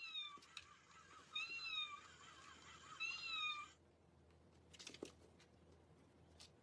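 A cat meowing three times, each meow a short, high call that rises and falls, about a second and a half apart, followed by a couple of faint clicks.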